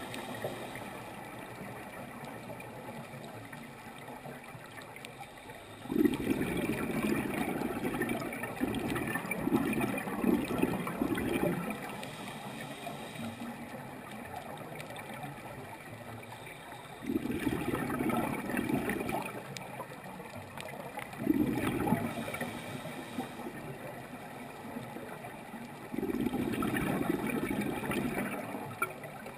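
Scuba diver's exhaled bubbles from the regulator, heard underwater: four bursts of bubbling, each a few seconds long, with quieter stretches between.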